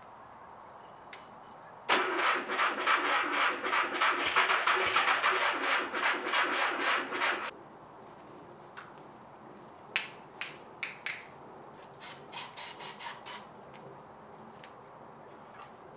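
Air-cooled VW flat-four engine on a stand being cranked by its starter for about five seconds, a rhythmic chugging of compression strokes that stops without the engine running on its own. A few short bumps of the starter follow later.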